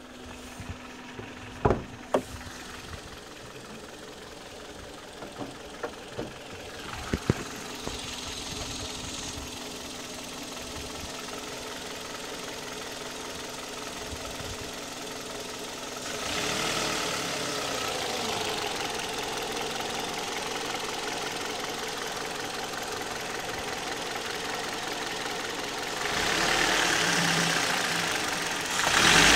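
2008 Kia Cee'd petrol engine running with a knock at about 104,000 km, a knock the owner cannot place since its valve clearances are within tolerance. A few sharp clicks come in the first seven seconds, and the engine sound gets louder in two steps, about halfway through and near the end.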